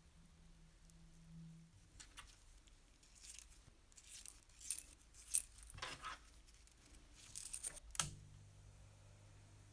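Small metal parts being handled, with a run of light clinks and rattles lasting about six seconds, starting about two seconds in.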